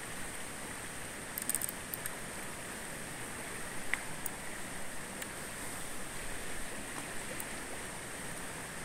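Steady rushing hiss of river water running fast over a shallow gravel riffle, with a few faint clicks about one and a half and four seconds in.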